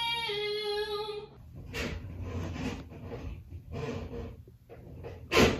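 A person's singing voice holding a sung note, which stops abruptly about a second in. Irregular rubbing and scraping noises follow, with a loud, sudden sound near the end.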